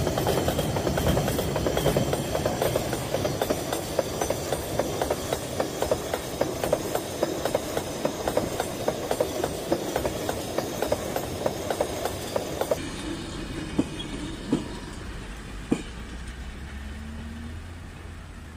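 Freight train of open and sliding-wall wagons rolling past, wheels clacking rhythmically over the rail joints. About two-thirds of the way through the clatter thins to a few separate clicks and fades as the last wagons pass.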